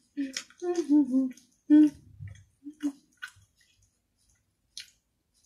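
A woman's voice for about the first two seconds, with words the recogniser did not catch, then a few faint short clicks and near quiet.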